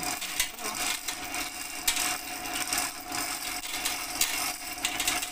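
Manual chain hoist being hauled, its chain links rattling and clicking irregularly as it lifts a heavy cast transmission case up off the gear shafts.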